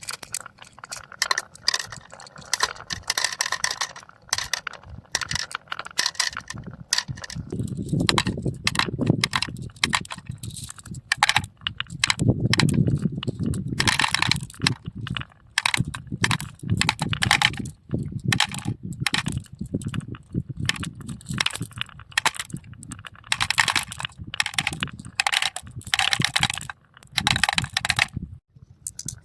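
Marbles rolling down a marble run track, a low rolling rumble broken by quick rapid clicks and clacks as they hit the track pieces and each other.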